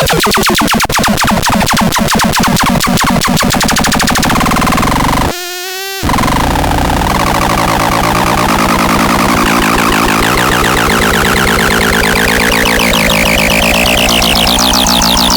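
Harsh electronic synthesizer noise from a SADO ĎASO ST 1: fast, dense pulsing tones with sweeping pitch. About five seconds in it drops for half a second to a quieter, thinner tone, then comes back and slowly sweeps upward.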